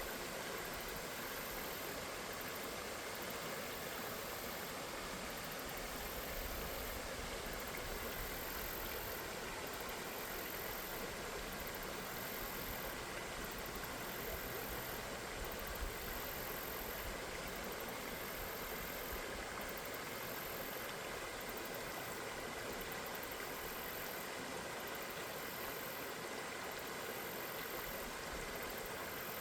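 Steady rush of flowing river water, an even hiss with faint steady tones underneath.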